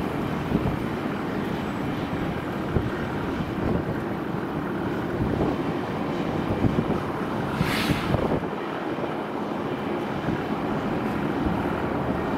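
Jet engines of a four-engined wide-body airliner running steadily as it moves along the runway, heard as a constant noise without clear tones. A short hiss comes about eight seconds in.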